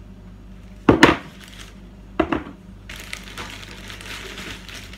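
Metal tins of corned beef set down on a hard surface: a double knock about a second in and another knock just after two seconds. Then a plastic shopping bag rustling and crinkling as hands rummage in it.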